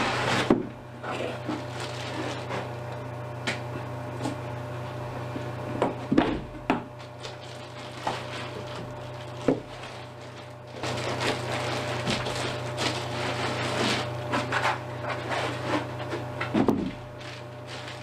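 Cardboard box and packing material being handled to unpack a camera: scattered knocks and thuds with stretches of rustling, busier from about two-thirds of the way in, over a steady low hum.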